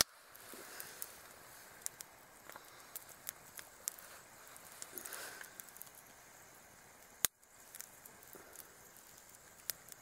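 Small wood campfire crackling: scattered small pops and snaps at irregular times, with one sharper crack about seven seconds in.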